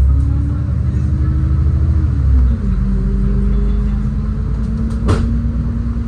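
City bus engine and drivetrain running under way, a steady low rumble with a whine that drops in pitch a little over two seconds in, as on a gear change or slowing. A single sharp knock or rattle about five seconds in.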